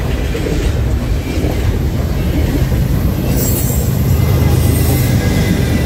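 Double-stack intermodal freight train rolling past, steel wheels clattering on the rails. About three seconds in, a CN diesel locomotive pushing at the rear of the train goes by, its engine running under a louder high hiss.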